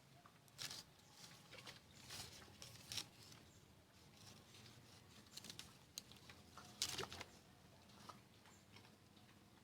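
Near silence, broken by a few faint, scattered clicks and rustles.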